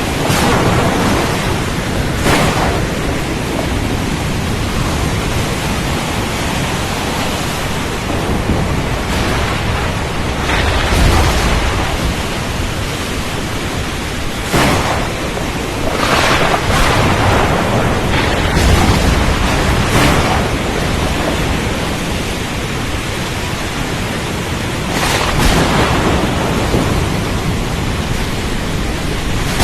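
Storm at sea: a steady roar of wind, rain and rough water, broken by sharp crashes every few seconds and deep rumbles of thunder about a third of the way in and again past the middle.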